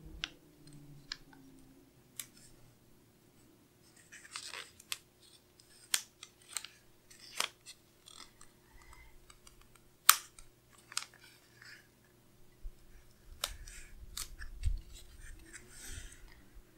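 Sticker paper being handled: the backing is peeled off a sticker strip and the strip is pressed and smoothed onto a paper planner page, giving scattered light ticks, paper rustling and crinkling, and a soft thump near the end.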